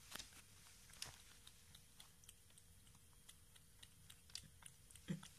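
A cat lapping milk from a small dish: a faint, uneven run of quick wet tongue clicks, about three or four a second, with one soft low knock near the end.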